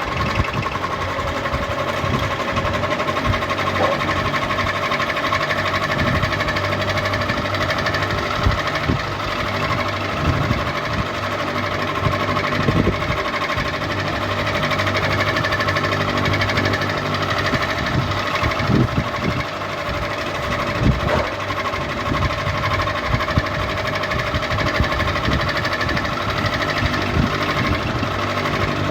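Ceiling fan running, a steady mechanical whir with a few held tones and irregular clicks and knocks.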